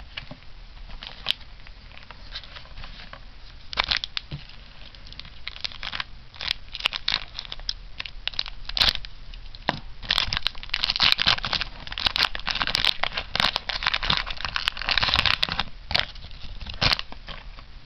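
Foil trading-card booster pack wrapper crinkling and crackling as it is handled and opened and the cards are pulled out. The crinkling is sparse at first and becomes dense and loudest over the second half.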